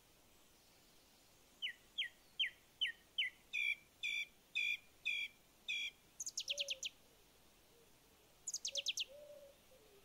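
Songbird song. First comes a series of about five quick, falling whistled notes, then about five longer, fuller notes. Two fast high trills of rapid falling notes follow, the second about two seconds after the first.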